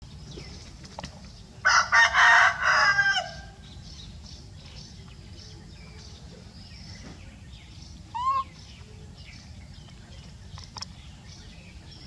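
Rooster crowing once, a call of about a second and a half some two seconds in. Faint chirping runs underneath, and a short rising squeak comes about eight seconds in.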